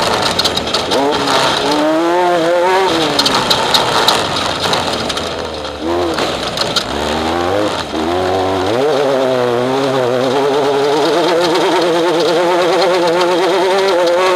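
Off-road race vehicle's engine heard onboard at race pace, its revs rising and falling with a quickly wavering pitch. It eases off about five to six seconds in, then climbs again and holds high.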